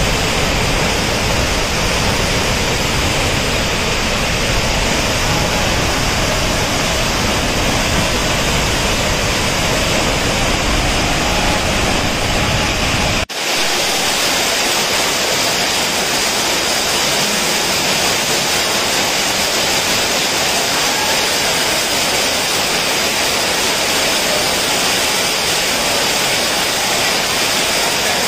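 Swollen, muddy waterfall pouring down a rock face: a steady rushing of water, heavy in the low end. About halfway through it cuts abruptly to a heavy downpour with water sheeting off a roof, a brighter hiss with little rumble.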